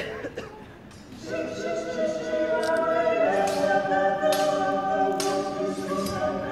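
A choir singing a cappella, held chords coming in about a second in, over the metallic clashes of swords in a stage-fencing bout: a sharp ringing clash at the very start and several more during the singing.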